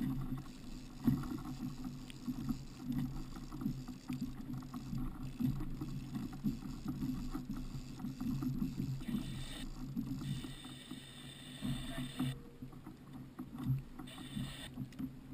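Water lapping and splashing against the plastic hull of a pedal kayak on open sea, a steady low, uneven wash with small knocks.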